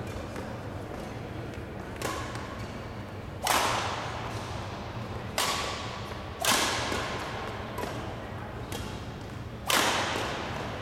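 A badminton rally: about five sharp cracks of a racket hitting the shuttlecock, one to three seconds apart, each ringing out in the echo of a large gym.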